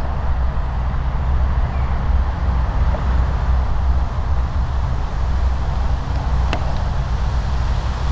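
Mini Crosser mobility scooter running along: steady low motor hum and tyre rumble, with one sharp click about six and a half seconds in.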